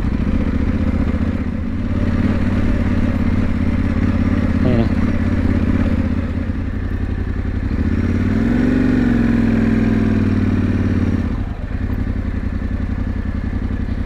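Yamaha Ténéré 700's parallel-twin engine running at low revs as the bike rolls slowly over rough dirt ground. About eight seconds in the revs rise and then fall back over a few seconds, settling to a steady low running note.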